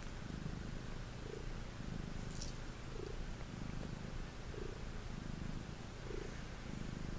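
Domestic tabby cat purring steadily as its head is stroked, a low rumble that swells with each breath about every second and a half.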